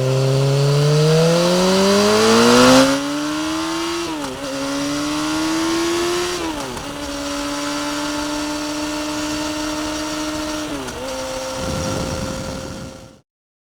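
BMW S1000-series inline-four sportbike engine accelerating hard through the gears: the note climbs steeply, drops back at each upshift, then holds steady at speed. Near the end a rush of noise comes in before the sound cuts off suddenly.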